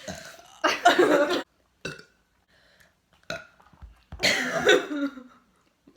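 Two loud burps from a girl: a short one just under a second in and a longer one about four seconds in.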